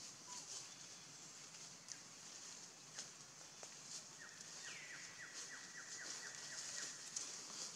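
Forest ambience: a steady high insect hiss, with a bird giving a run of about a dozen short, down-slurred notes at roughly four or five a second from about halfway in. A few faint clicks from twigs and leaves are also heard.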